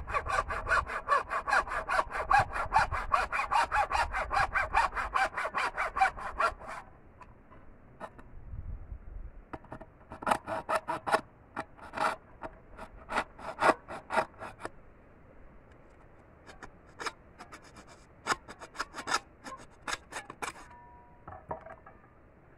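Hacksaw cutting through a bamboo pole: fast, steady back-and-forth strokes for about the first seven seconds, then slower, scattered strokes with pauses between them.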